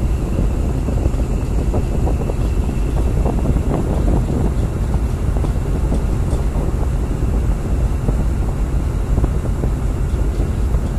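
Tugboat's diesel engine running steadily under load as it tows a large tanker on a taut line, with wind buffeting the microphone.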